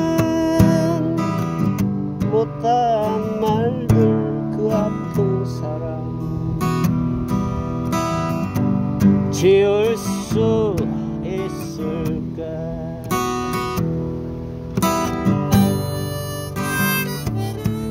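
Steel-string acoustic guitar strummed in steady chords while a harmonica plays the melody over it, its notes bending and wavering.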